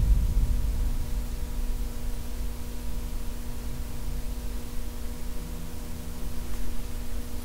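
Faint, low humming barely standing out from the hiss and low rumble of an amplified recording, with a steady electronic tone running underneath. The ghost hunters take the humming for an unexplained voice, since nobody present was humming.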